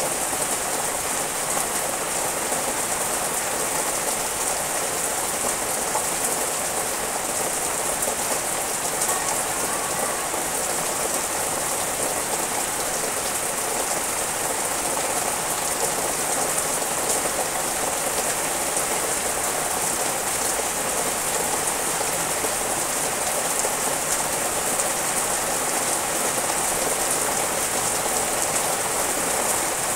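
Steady rain falling on leafy trees and garden plants: an even, unbroken hiss.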